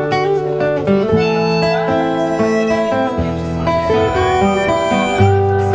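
Acoustic guitar and harmonica playing together: the instrumental introduction of a folk song, performed live.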